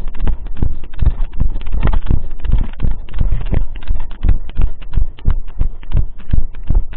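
Brisk footsteps, about three thumps a second, with the body camera bumping and rubbing against the wearer's clothing at each step.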